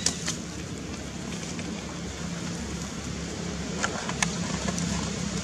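Dry fallen leaves crackling a few times, sharply, as macaques step and move on the leaf litter, over a steady low background rumble.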